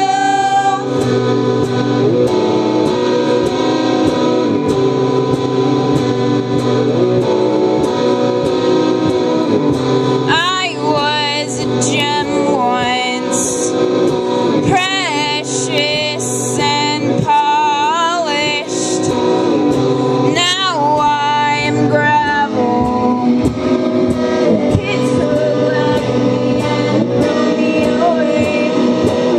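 Live band playing: strummed electric guitar chords under singing. The voice comes in about ten seconds in, with wavering held notes, and drops out a little past twenty seconds while the guitar carries on.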